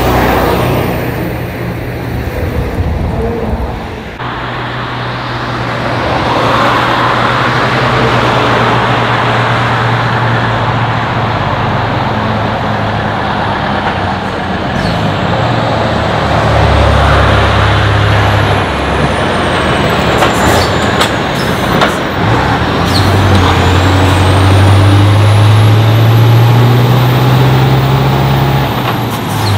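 Tatra 815 truck's diesel engine pulling under load while towing an articulated bus, its note rising and falling, with tyre and road noise. The engine pitch climbs steadily near the end, and a few sharp clicks come about two-thirds through.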